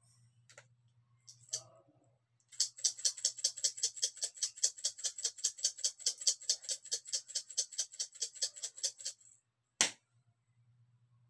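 A seasoning shaker shaken over a pot, its granules rattling in rapid, even shakes for about seven seconds, followed by a single sharp knock.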